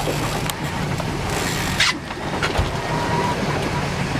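Boat engine running steadily under heavy wind and water noise.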